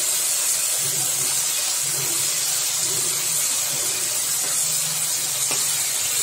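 Brinjal and capsicum pieces sizzling steadily in hot oil in a wok while a spatula stirs them.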